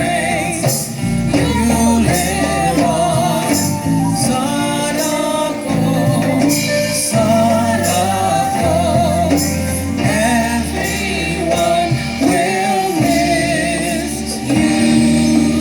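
A song with singing voices over a steady bass line and backing instruments, in a gospel style.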